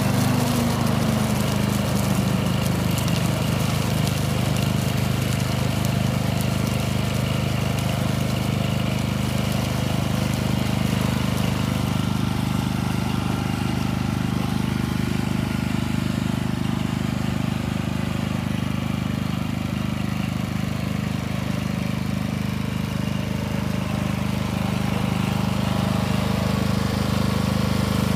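Lawnflite lawn mower engine running steadily at a constant speed, dipping slightly in pitch about a second in.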